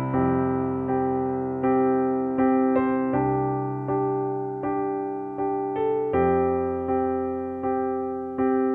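Background music: slow piano chords, a new chord struck roughly every second and each fading away before the next.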